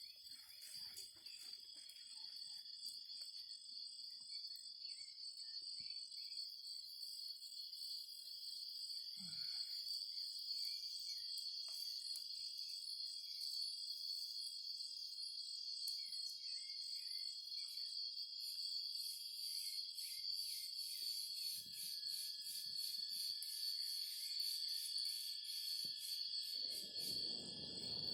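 Steady, high-pitched chorus of insects. A few faint knocks sound, and near the end there is a brief rustle.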